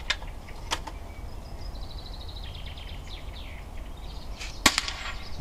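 A single sharp airgun shot crack about three-quarters of the way through, after two fainter sharp clicks near the start. In between, a small songbird sings a quick trill of repeated high chirps.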